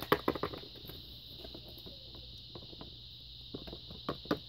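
A small plastic Littlest Pet Shop figure tapped against a hard tabletop as it is hopped along by hand: a quick run of light taps at the start, a quiet stretch, then a few more taps near the end.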